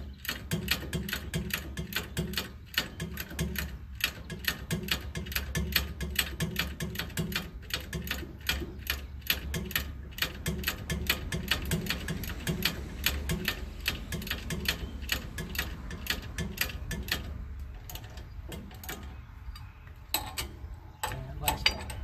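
Hand ratchet with a 9/16-inch socket clicking rapidly and steadily, several clicks a second, as hub mounting bolts are run in and snugged down; the clicking thins out in the last few seconds.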